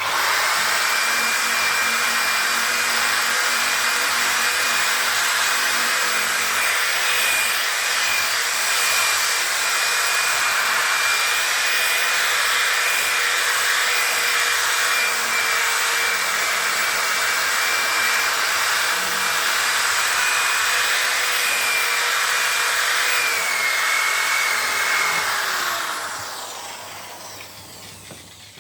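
Handheld power tool running steadily with a buffing pad on a plastic headlight lens during the final polishing pass. Its pitch drops slightly near the end, then it is switched off and winds down over the last few seconds.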